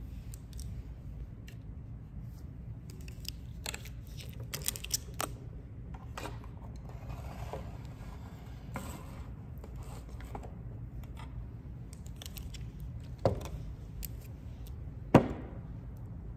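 Tarot cards being handled, shuffled and set down, giving scattered small clicks, taps and scrapes. Two sharper knocks come near the end, over a steady low hum.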